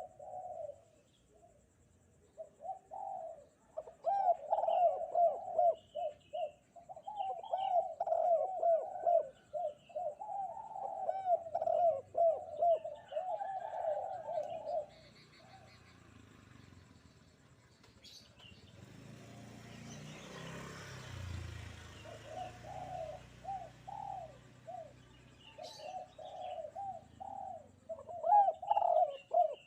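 Spotted dove (derkuku) cooing in repeated phrases of low coos. About halfway the cooing stops and a rushing noise swells and fades, then the cooing resumes. Faint chirps from small birds are heard in the background.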